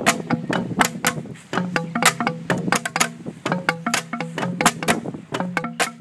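Kāʻekeʻeke, bamboo stamping tubes of several lengths, struck end-down on the ground by a group of players in an interlocking rhythm. Each stamp is a short knock that leaves a brief low tone, the different tubes sounding several different pitches, several strikes a second.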